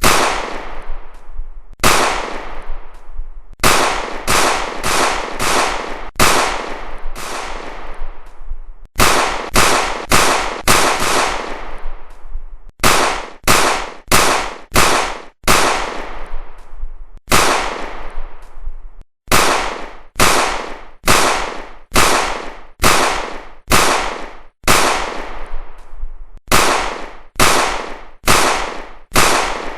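Pistol and shotgun shots fired one at a time, about thirty-five in all, each a sharp report with a ringing tail that dies away. Some stand alone a second or two apart; others come in quick runs of three to five, about two a second.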